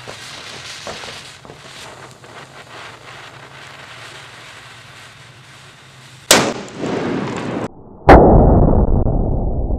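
Lit fuse of a homemade firecracker bomb, the powder of three crackers packed in a paper tube, fizzing faintly, then a sharp explosion about six seconds in. A second, louder and deeper blast follows about eight seconds in, with a long fading tail.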